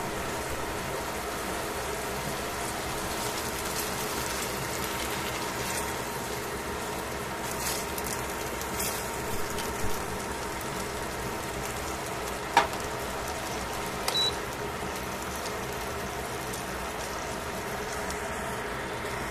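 Chicken pieces sizzling and bubbling in a stainless steel pan, a steady frying hiss over a low hum. Partway through, metal tongs click and tap against the pan a few times as the pieces are turned.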